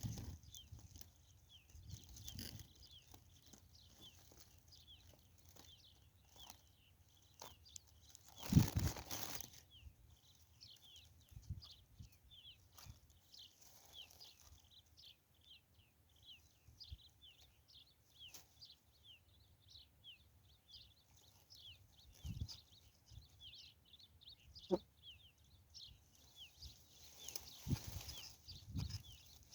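Small birds chirping continuously in quick, high, short chirps, with a loud rustling noise about eight seconds in and again near the end.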